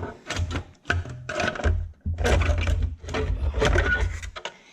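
Sheet-metal heat shield being wiggled out of a tight spot, scraping and knocking against the surrounding metal in a run of irregular rough scrapes that stop shortly before the end.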